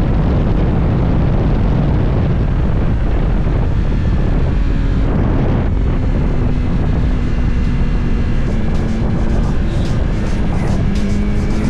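Motorcycle engine running under throttle with a loud low rumble. About halfway through it settles into a steady drone that eases slightly lower in pitch.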